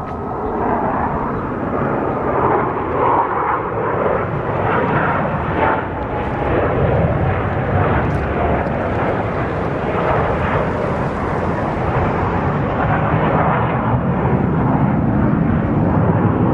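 Airplane flying an air show display pass, its engine noise a steady loud rumble that grows a little louder in the second half.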